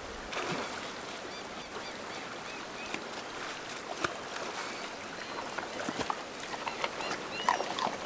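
Shallow river water running and splashing around a grizzly bear wading and pawing at the water for salmon, with a few sharp splashes. Short, high bird calls come through now and then.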